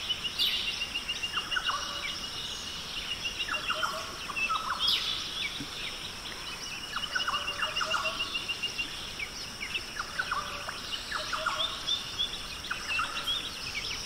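Birds calling over a steady high insect drone: rapid trills of quick, evenly spaced notes come and go, mixed with clusters of short, sharp calls that sweep downward in pitch.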